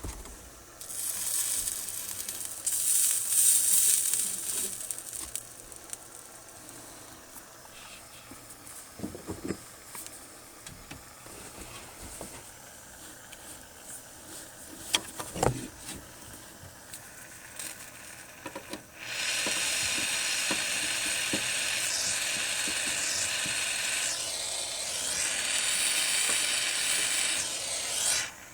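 Gas soldering torch hissing: a brief burst of hiss near the start, then, about two-thirds through, a steady hiss that starts abruptly and cuts off sharply near the end. Scattered clicks and knocks sit between the two.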